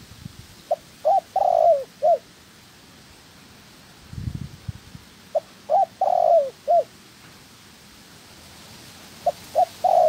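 Spotted dove cooing: three phrases about four to five seconds apart, each a couple of short notes, a longer falling coo and a short closing note. A short low thump about four seconds in.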